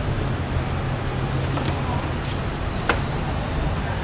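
A steady low hum of a running motor under a noisy background, with a sharp click about three seconds in.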